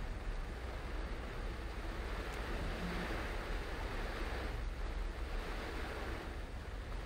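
Steady hiss of tyres on a rain-soaked road and rain on a moving car, over a low road rumble, the hiss swelling twice.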